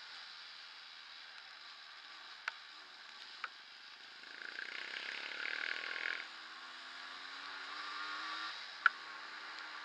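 Yamaha DT230 Lanza two-stroke trail bike ridden on a wet dirt track: a steady rushing hiss with a few sharp clicks, a louder rush of tyres through puddles about four to six seconds in, then the faint engine note rising in pitch.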